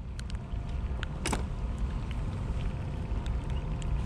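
Steady low rumble of wind on the microphone with scattered light clicks and knocks from handling on a kayak, one sharper knock about a second in.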